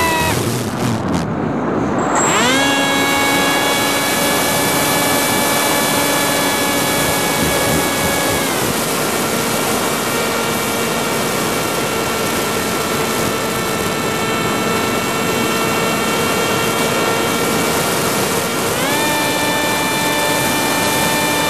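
FPV quadcopter's brushless motors and propellers whining, heard through the onboard camera over a steady rush of air. The whine drops away just after the start as the throttle is cut, jumps back up about two seconds in and holds, settles lower about eight seconds in, and climbs again near the end.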